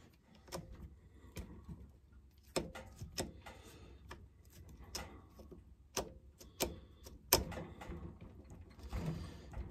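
Irregular metallic clicks and clinks, about a dozen spread over several seconds, from hands working on a chainsaw's newly fitted bar and chain.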